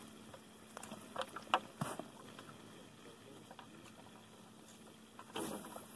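Faint scattered clicks and rustles of a person moving about and handling gear, with a louder brief rustle about five seconds in.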